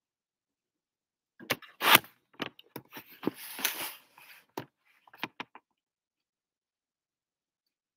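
Handling noise of the camera being turned around: a run of knocks, scrapes and rustles, the loudest a sharp bump about two seconds in.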